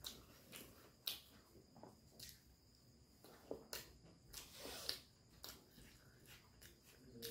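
Faint close-up eating sounds: irregular wet mouth clicks and smacks of chewing, with soft squishes of fingers mixing khichuri on a plate.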